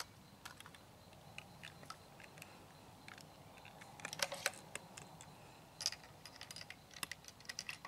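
Scattered light clicks and knocks from a Savage Model 110 bolt-action rifle being handled, coming thicker about halfway through and again near the end.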